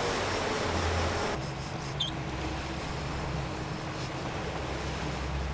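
Fishing boat's engine running under way, a steady low hum under rushing wind and water noise. The rushing eases about a second and a half in.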